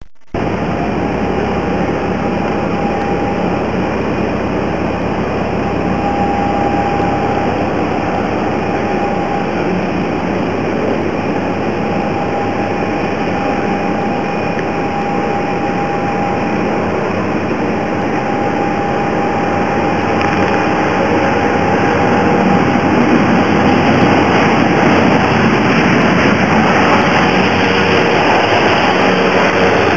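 Jet engines of a Boeing 737-700 airliner on landing approach: a steady rushing noise with a thin, even whine. It grows louder from about two-thirds of the way in as the aircraft flares and nears the runway for touchdown.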